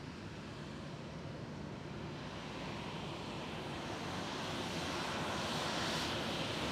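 Jet airliner's engines, a steady rushing noise that grows louder and brighter over the last few seconds as the aircraft draws nearer.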